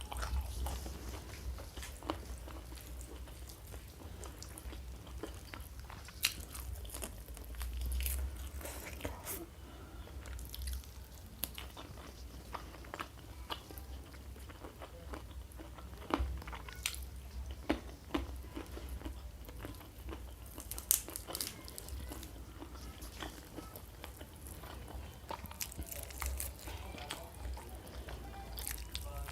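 Close-miked mouth sounds of eating: steady chewing, with irregular sharp crunchy bites scattered through.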